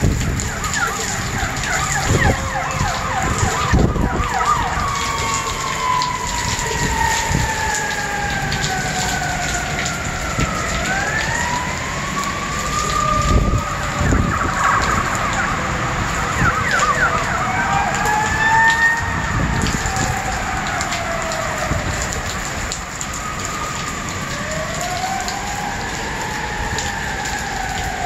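Heavy rain hissing steadily while several emergency-vehicle sirens wail over it, their pitches slowly rising and falling and overlapping, with quick yelping sweeps near the start and again about halfway through. A few low thuds break through, the strongest about halfway through.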